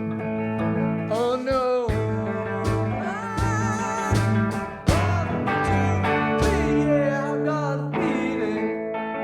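Band music: a singing voice over guitar, a steady bass line and a few drum hits.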